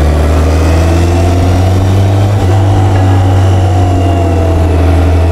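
BMW K1100LT's 1092 cc inline-four engine running steadily while the motorcycle cruises along a road, a deep, even hum with little change in engine speed.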